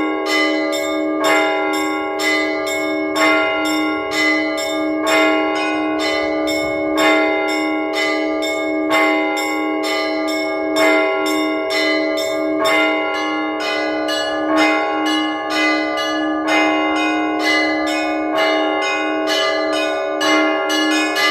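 Russian Orthodox church bells rung by hand: a quick, continuous pattern of small bells over the held hum of a larger bell, with a heavier stroke about every two seconds. This is the Sunday ringing that calls the parish to the service.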